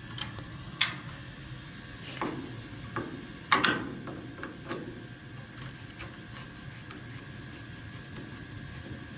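A few sharp clicks and knocks in the first four seconds, the loudest about three and a half seconds in, over a steady low hum.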